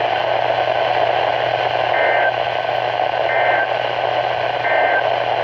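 NOAA Weather Radio receiver hissing with static, with a steady low hum. From about two seconds in come three short bursts of two-pitch digital data tones, about 1.3 s apart: the EAS SAME end-of-message code that closes an alert broadcast.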